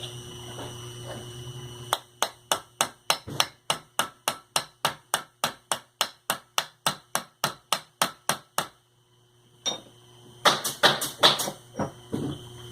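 Hammer tapping in a steady rapid run, about four blows a second, during reassembly of a sewing machine motor fitted with new bearings. After a short pause, a few heavier, irregular knocks near the end.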